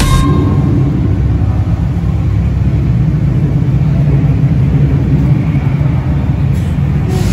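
First-generation Acura NSX's V6 engine running with a low, steady rumble as the car rolls slowly past at low speed.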